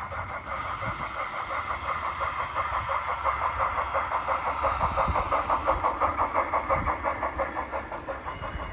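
Dapol O gauge Terrier model tank engine's DCC sound decoder playing steam exhaust chuffs through its small speaker: a rapid, even beat of several chuffs a second with a hiss above it, growing louder toward the middle and fading near the end as the model runs past, with a low rumble of wheels on the track beneath.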